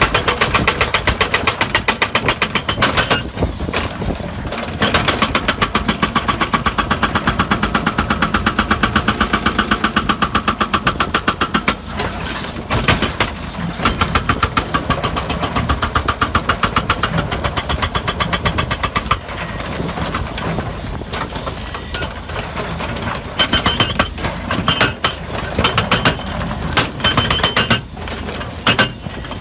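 Hydraulic rock breaker on a Hidromek 140 crawler excavator hammering rock in rapid, evenly spaced blows, in long runs broken by short pauses and then in short bursts over the last few seconds. The excavator's diesel engine runs underneath.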